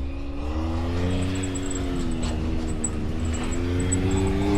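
Off-road vehicle's engine running under light throttle on a trail crawl, its pitch wavering slowly up and down and climbing a little near the end.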